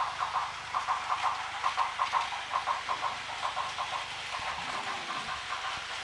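Battery-powered Plarail toy trains running on plastic track, including a 0 Series Shinkansen: a busy whirring with rapid, irregular clicking, several clicks a second.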